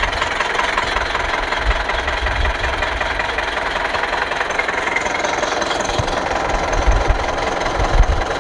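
Truck diesel engine idling steadily with the radiator cap off, circulating flushing water through a dirty cooling system. A few low thumps come near the end.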